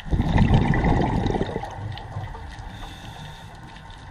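Scuba regulator exhaust heard underwater: a burst of exhaled bubbles gurgling for about a second and a half, then fading.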